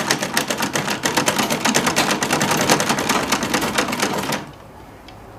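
Old domestic Butterfly sewing machine stitching, a fast, even clatter of needle strokes that stops about four seconds in.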